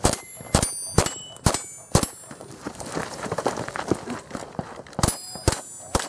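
Revolver shots at steel targets, with the hit plates ringing after several shots: five quick shots about half a second apart, a pause of about three seconds, then three more.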